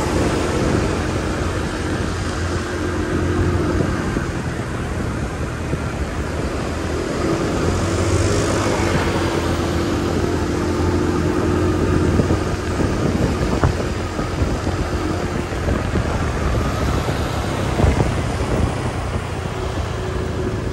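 Motor scooter engine running steadily at riding speed, with tyre and wind noise and other scooters and cars passing on the road.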